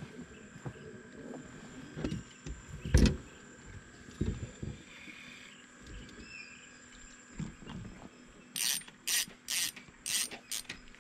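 Fishing tackle knocking against a small boat as rods are handled, the loudest knock about three seconds in, then five short bursts near the end as a spinning reel is worked.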